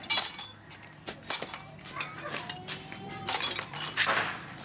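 Metal hand tools (wrenches, screwdrivers, sockets) clinking against each other as they are rummaged through in a fabric tool bag, with a few sharp clinks, the loudest at the start, and a short rustle near the end.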